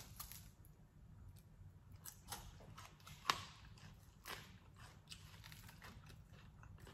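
Faint scattered clicks and taps of a fork on a plate as fried whole fish is picked apart with fork and fingers, with one sharper click a little past the middle.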